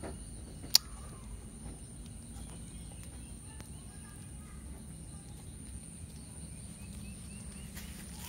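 Rural outdoor ambience: a steady high-pitched whine with faint bird chirps, broken by one sharp click about a second in.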